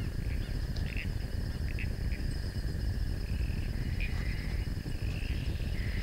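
Night-time insect chorus: a steady high trill with a few short chirps scattered through it, over a low rumble.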